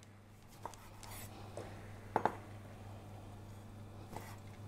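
Lemon being zested on a grater: faint scraping with a few light taps, over a steady low hum.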